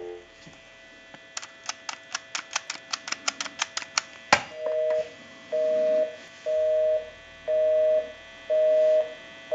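Touch-tone (DTMF) digits dialed quickly on a Western Electric Trimline phone's keypad: a rapid string of short beeps. A click follows, then a North American busy signal. Its two-note tone pulses on and off about once a second, because the number called is busy.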